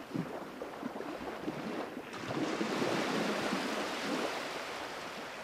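Ocean waves washing: a steady wash of surf that swells about two seconds in and then slowly eases off.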